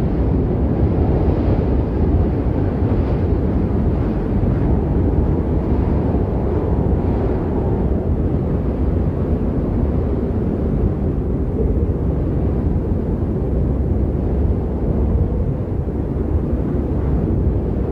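Steady low rumbling wind, a continuous snowstorm sound effect, with no distinct gusts, whistles or impacts.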